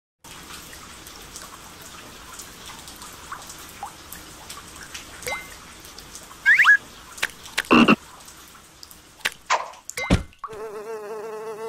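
Cartoon sound effects: a low steady background hiss, then a few quick rising squeaks and several sharp hits. Near the end comes a wavering, drawn-out croak from a large cartoon frog.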